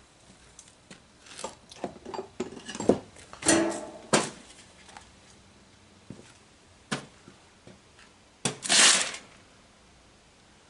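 Scattered clicks, knocks and light clatter of hands and parts being handled in a car's engine bay, busiest in the first few seconds, then single clicks, with a half-second rush of noise near the end as the loudest sound.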